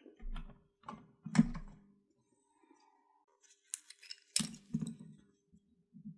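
Small tools and a spool of jumper wire being handled on a repair bench: a string of short clicks and rattles, with a couple of sharp metallic clicks about four seconds in.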